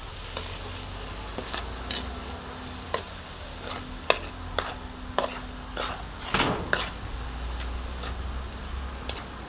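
A metal ladle scraping and clacking against a steel wok as mung beans and pork are stirred and sautéed, over a light sizzle. The ladle hits come at irregular moments, and there is one longer scrape about six and a half seconds in.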